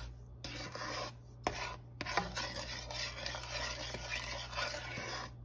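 Wooden spatula stirring and scraping a thick paste of cocoa powder, sugar and hot water around a non-stick pot, in repeated strokes broken by a few short pauses.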